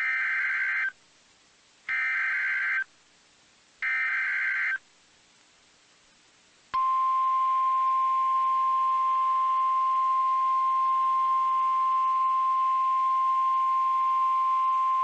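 NOAA Weather Radio emergency alert signal. First come three short bursts of warbling SAME data tones, each just under a second long and about a second apart. After a short gap, the steady single-pitch 1050 Hz warning alarm tone starts about seven seconds in and holds, heralding a tornado emergency message.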